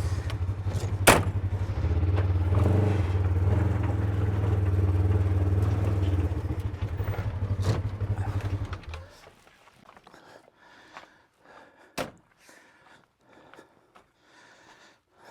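Small gas engine of a vac pac prospecting vacuum running with a steady low hum, then shutting off about nine seconds in. Faint scrapes and one sharp knock follow.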